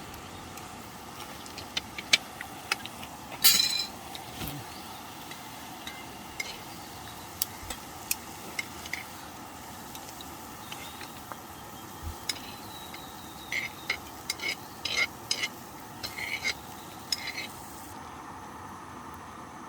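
Scattered clinks and light knocks of cutlery and cookware being handled, with a run of short strokes near the end, over a steady low hiss.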